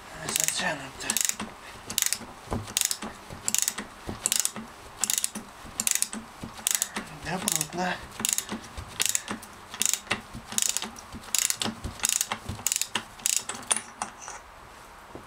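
Ratchet wrench clicking in short strokes, about two a second, as it unscrews the clutch centre nut on a motorcycle engine; the clicking stops near the end.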